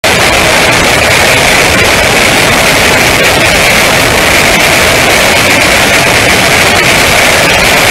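Loud, steady rush of wind and road noise on a camera mounted low on the front fork of a Kawasaki ER-5 motorcycle riding at speed; no clear engine note stands out of the noise. It cuts in abruptly at the start.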